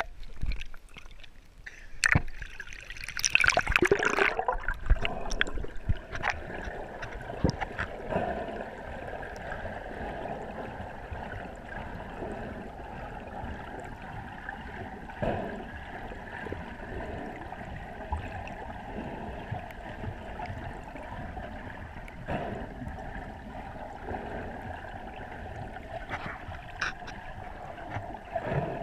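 Sea water heard through a GoPro Hero3+ Black's waterproof housing: a loud burst of splashing in the first few seconds as the camera goes under, then a steady muffled underwater rush with a few faint knocks.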